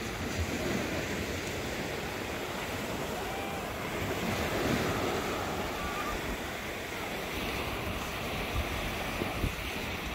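Small surf waves breaking and washing up a sandy beach, a steady wash that swells a little about four to five seconds in. Wind rumbles on the microphone, with a few low bumps near the end.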